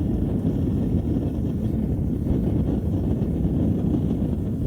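Forge running with a steady low roar.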